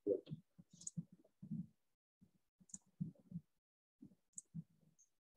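Faint, irregular clicks and soft knocks, computer mouse clicks and desk handling picked up by a headset microphone, with short gaps of near silence between them.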